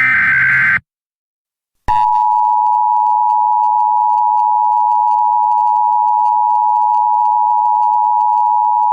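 The end of an Emergency Alert System SAME header data burst cuts off just under a second in. After about a second of silence the steady two-tone EAS attention signal starts and holds.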